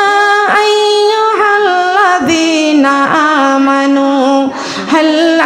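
A woman chanting Quranic recitation in a melodic, drawn-out style, holding long ornamented notes that waver in pitch, with short breaks between phrases.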